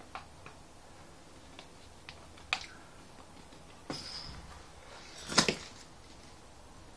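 Scattered small clicks and knocks of parts and tools being handled, with a sharp click about two and a half seconds in, a knock and brief hiss about four seconds in, and the loudest quick clatter about five and a half seconds in.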